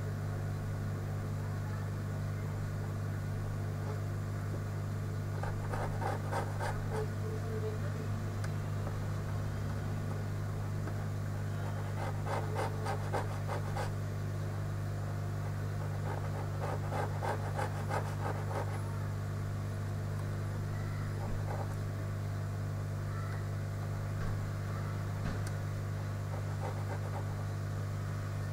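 Steady low hum with three spells of fine scratching and clicking, each lasting a second or two, and a few single ticks later on.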